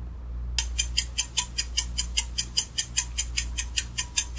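Quiz countdown-timer sound effect: a clock ticking quickly and evenly, about five ticks a second, starting about half a second in over a steady low hum.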